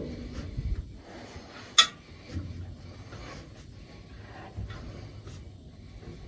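Scraping and rubbing of hand work on metal baler parts during a bearing repair, with scattered knocks and one sharp clink about two seconds in.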